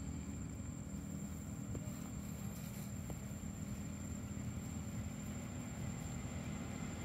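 A steady low mechanical hum, like a running engine, with a thin high whine held over it.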